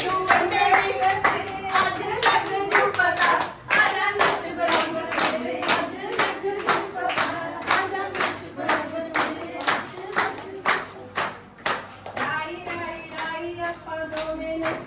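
Hands clapping a steady rhythm along with a Punjabi folk song being sung.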